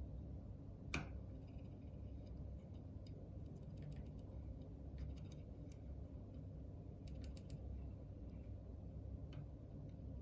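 Faint, scattered small metallic clicks and ticks of a pick working the wafers inside a Ford HU101 ten-wafer car lock, with one sharper click about a second in, over a steady low hum.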